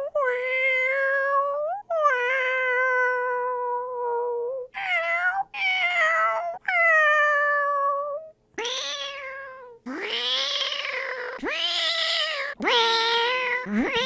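A person imitating cat meows with the mouth: a run of about nine drawn-out meows. The first ones are long and slide slowly down in pitch; from about two-thirds of the way in they are shorter and swoop sharply up at the start.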